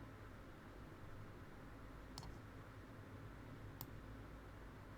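Two faint clicks at a computer, about a second and a half apart, over a low steady hum.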